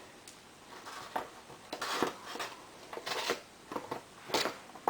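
Irregular metallic clinks and knocks of a hand wrench and bolts as the 12 mm bolts of a quad's plastic swing arm skid plate are taken out.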